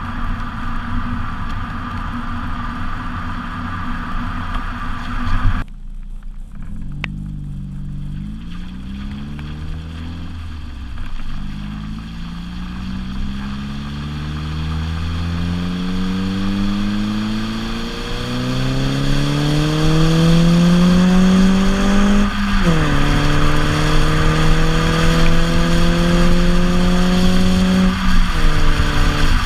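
2011 Ford Focus S's 2.0-litre four-cylinder engine through an FSwerks Stealth aftermarket exhaust. After a few seconds of steady running that cuts off sharply, the engine accelerates through the gears: the exhaust note climbs in pitch in each gear and drops back at each upshift, several times, then holds a louder, nearly steady note near the end.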